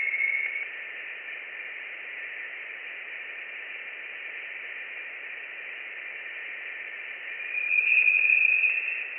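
Voyager plasma-wave instrument readings converted into sound: a steady radio-static hiss with a faint tone near the start and a louder, higher tone swelling in about eight seconds in. The higher tone marks a rise in the density of the plasma around the probe.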